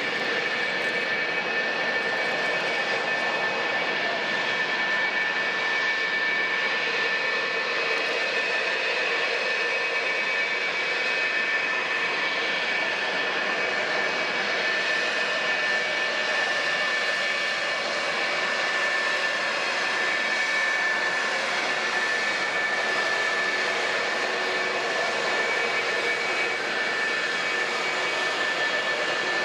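Military jet engines running at taxi idle: a steady rushing noise with high, unchanging whistling tones.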